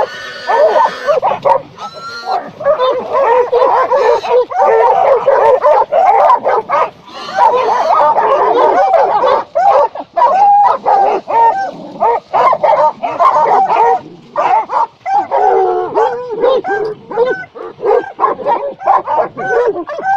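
Several hunting dogs barking and yelping almost without pause, many calls overlapping, as they hold a wild boar at bay.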